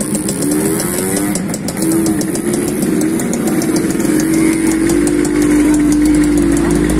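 Suzuki RGSVX motorcycle engines running at a gathering. One engine's pitch rises and falls in the first couple of seconds, then holds a steady rev, with a deeper rumble coming in about four seconds in.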